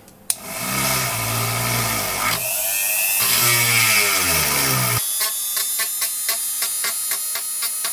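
Handheld rotary tool spinning against a circuit board at a pre-drilled mounting hole, its whine rising and falling in pitch. About five seconds in it changes abruptly to a higher, rougher grinding.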